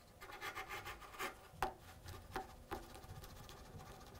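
Freshly sharpened chisel paring the end grain of a wooden block: a series of faint, short scraping strokes.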